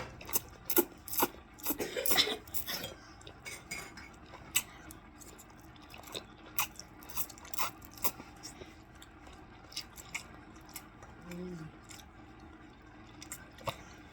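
Cutlery clinking and scraping on a plate during a meal of spaghetti, in irregular sharp clicks, busiest about two seconds in.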